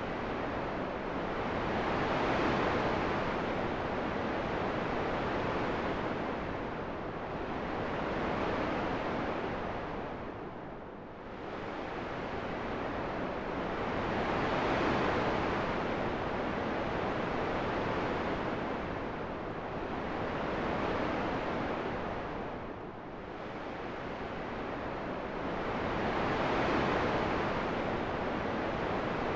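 Relaxing wind sound: a steady rushing noise that swells and eases in slow gusts, dipping more deeply about every twelve seconds.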